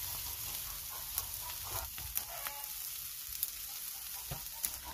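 Chicken pieces sizzling on a wire grill over glowing coconut-shell charcoal: a steady hiss with a few sharp clicks scattered through it.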